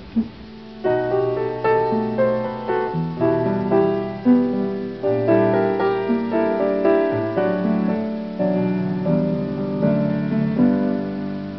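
Background music: a melody of separate notes over held low notes, coming in about a second in.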